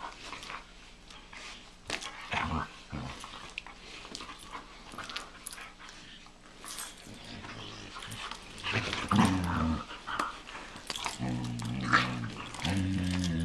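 A Doberman and a Belgian Malinois play-fighting: low growls in short bouts, loudest and longest in the last few seconds, over scuffling and mouthing noises.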